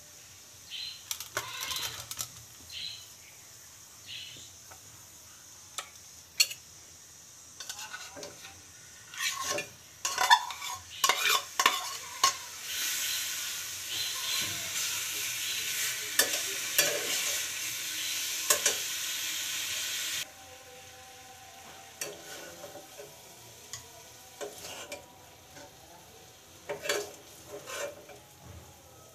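Food frying in a metal kadai on a gas burner, stirred with a metal spoon that scrapes and clinks against the pan. In the middle a loud sizzle sets in for several seconds and then cuts off suddenly.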